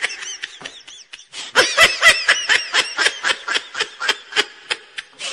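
A person laughing in a rapid run of 'ha-ha' pulses, about four or five a second, after a brief pause about a second in, fading away near the end.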